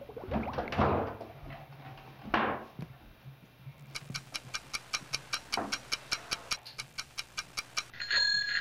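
A wooden chair bumped and set down on the floor, then a quick, even ticking at about five ticks a second for about four seconds, like a clock, ending in a short steady tone near the end.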